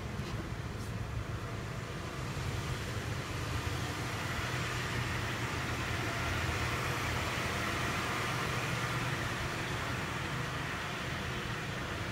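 Mitsubishi Pajero's 3.0-litre V6 idling steadily, a low even hum. A higher hiss builds and becomes louder from about four seconds in.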